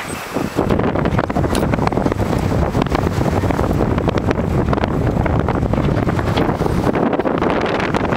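Wind buffeting the microphone: a loud, rough, continuous rumble and rush with rapid irregular gusts.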